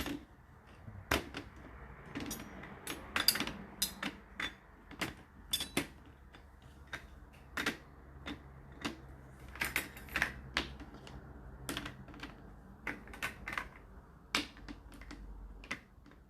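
Dishes and cutlery clinking and knocking against each other and the plastic-coated wire dishwasher racks as they are loaded, in irregular sharp clicks, a few louder clatters among them.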